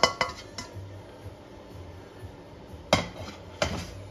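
Spatula scraping and clicking against a frying pan as stir-fry is scraped out onto a plate, then two sharp clanks of the pan near the end.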